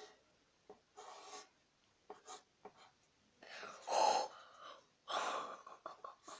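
Several short breathy giggles and gasps from boys, the loudest about four seconds in.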